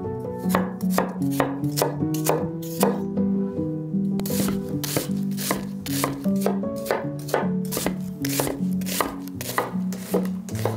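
Chef's knife cutting an onion on a wooden cutting board: a run of crisp knocks as the blade strikes the board, turning into faster rapid chopping about four seconds in. Soft background music plays underneath.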